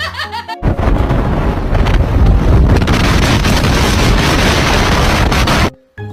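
Loud, steady rushing noise with a deep rumble, like wind buffeting the microphone, starting suddenly about half a second in and cutting off abruptly near the end.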